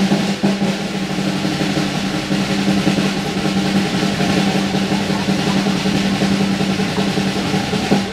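Steady, unbroken drum roll, the kind played to build suspense during a stunt.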